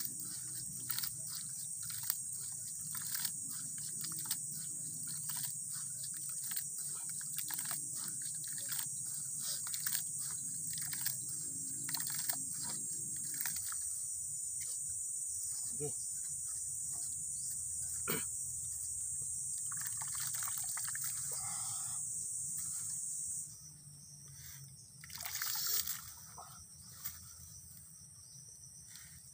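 Hands kneading flour and water into dough in a metal bowl: a run of soft, irregular wet squishing and patting strokes. Behind it runs a steady high-pitched drone that stops suddenly about four-fifths of the way through.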